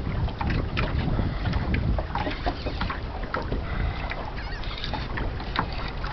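Water lapping and slapping against the hull of a 14-foot aluminium boat, with irregular clicks and splashes and wind buffeting the microphone.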